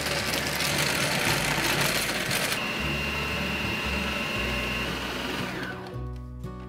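Electric food processor running, its blade finely mincing raw pork filling; a steady high whine joins about two and a half seconds in, and the motor winds down about five and a half seconds in.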